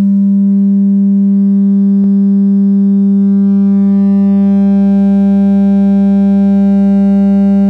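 Subwoofer driver in a 3D-printed enclosure playing a loud, steady 199 Hz test tone for a sound pressure level measurement, reading about 122 to 126 dB. The tone carries strong harmonic distortion. There is one brief click about two seconds in.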